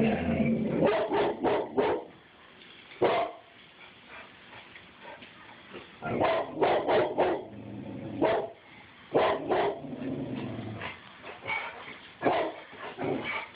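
Dog barking repeatedly: sharp barks, some single and some in quick runs of three or four.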